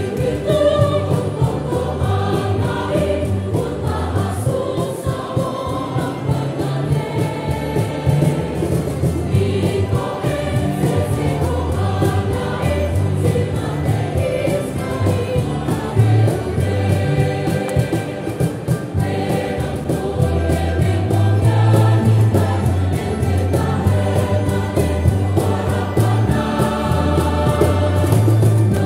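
A choir singing a hymn over a steady instrumental bass accompaniment.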